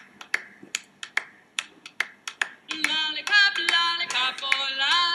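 A recorded pop song opening with finger snaps on a steady beat, about two to three a second; high-pitched singing comes in over the snaps about two and a half seconds in.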